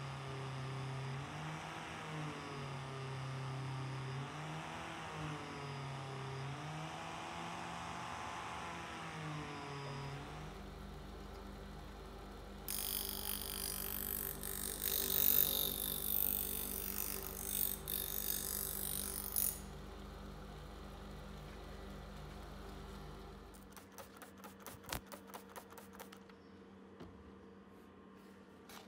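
Angle grinder with a buffing disc running, its pitch rising and falling as the work is pressed against it. About ten seconds in, a bench grinder takes over with a low steady hum, and from about thirteen to nineteen seconds a steel knife blade is ground on its wheel with a loud hiss. The hum ends near the end, followed by a run of light clicks.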